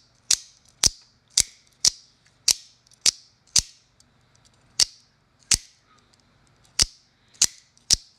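AKC F-16 out-the-front automatic knife being fired over and over, its spring-driven blade snapping out and back with sharp, loud clicks about twice a second and one short pause near the middle. It is a repeated cycling endurance test, and the mechanism fires on every stroke without locking up.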